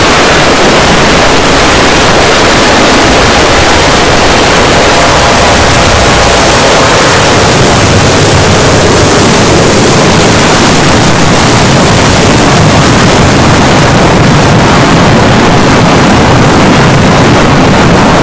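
Heavily distorted, clipped jumpscare sound effect: a constant, extremely loud wall of harsh noise spread across all pitches.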